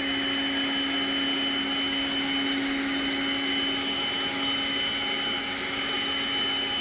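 Ryobi cordless leaf blower's electric ducted fan running steadily at full speed: a steady high whine over rushing air.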